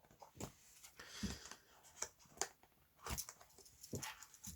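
Faint handling noises from a cardboard gift box and pocket knife: a few soft, irregular knocks and clicks with a brief rustle.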